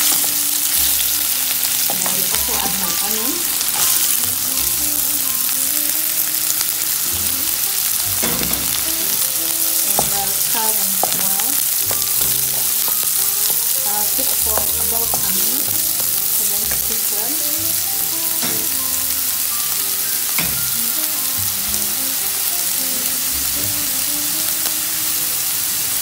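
Garlic, ginger and diced red onion sizzling in hot cooking oil in a wok, stirred and scraped with a wooden spatula. The sizzle is a steady hiss with small scrapes and clicks from the spatula.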